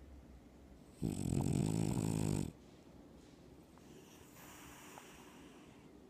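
French bulldog snoring in its sleep: one loud snore about a second in, lasting about a second and a half, then a softer breath near the end.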